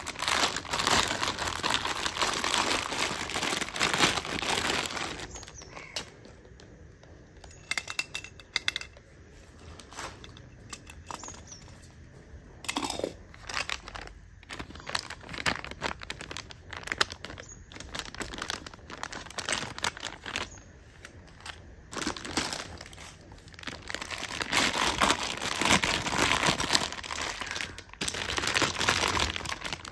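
Plastic film and bags crinkling as mixer-grinder jars and parts are handled and unwrapped. It comes in two long bursts, one at the start and one about three-quarters through, with scattered light clicks and knocks of the parts in the quieter stretch between.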